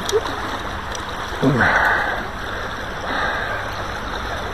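Steady rush of river current, with three short sloshing swells of water about a second and a half apart.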